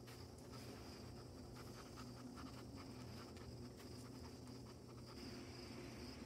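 Faint, steady chirring of crickets, with soft scratchy rustling for about the first five seconds that stops near the end.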